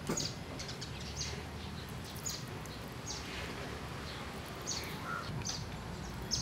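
Birds chirping outdoors: many short, high calls that drop in pitch, scattered irregularly, over a steady background hiss.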